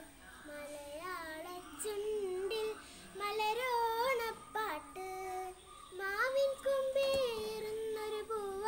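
A child's voice singing a slow melody, holding notes and bending between them with a slight waver.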